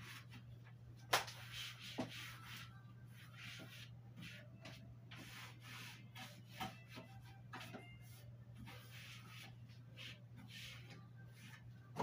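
Cloth wiping the shelves of a white melamine shelf unit in repeated short rubbing strokes, with a sharp knock about a second in and a lighter one a second later, over a steady low hum.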